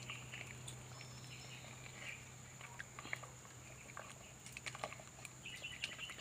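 Quiet outdoor ambience with a few faint, scattered clicks and distant bird chirps.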